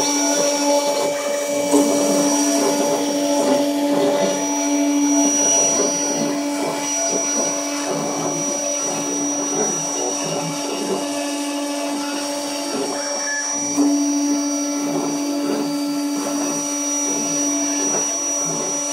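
Gravograph ISIS 800 CNC engraving machine running steadily as it cuts into an anodised aluminium plate: a motor hum with a high spindle whine that drops out and returns a few times.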